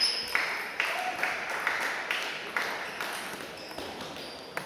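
A table tennis ball struck hard right at the start, with a short high ring. It is followed by a run of soft, evenly spaced scuffs about twice a second that fade away, then a few light ball pings near the end.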